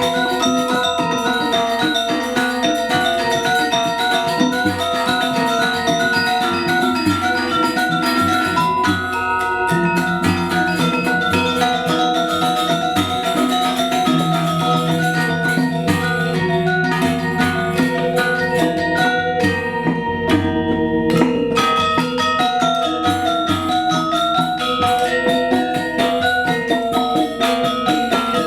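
Balinese gamelan playing Legong dance music: bronze metallophones ringing in quick runs of notes, with a long low note held in the middle.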